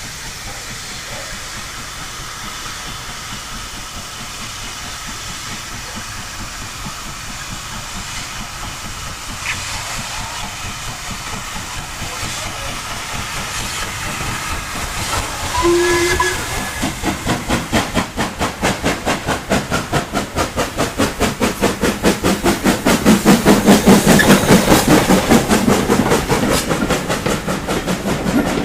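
LMS Stanier Black Five 4-6-0 steam locomotive approaching and passing under steam: a hiss that grows steadily louder, one short whistle blast about halfway through, then fast, even exhaust beats that peak as the engine goes by.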